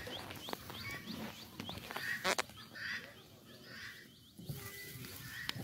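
Small birds chirping in quick repeated high notes, with a few sharp clicks and knocks scattered through.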